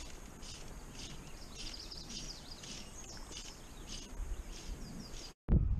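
Birds chirping and singing faintly and repeatedly over quiet riverside ambience. Near the end the sound cuts out for an instant and a loud low rumble begins.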